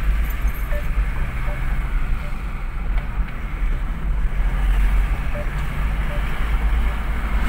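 Car driving, heard from inside the cabin: a steady low engine and tyre rumble on the road.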